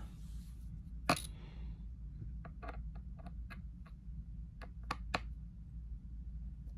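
A sharp metallic click about a second in, then a string of lighter clicks and ticks, from a P5 pentalobe screwdriver working the small screws out of a MacBook's aluminium bottom case.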